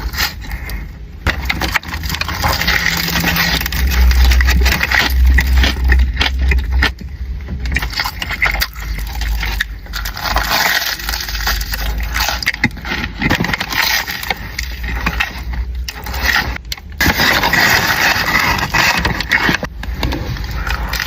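Close-miked crunching and crackling of eating a sugar-coated Korean corn dog, mixed with handling noises, with heavy low thumps on the microphone a few seconds in.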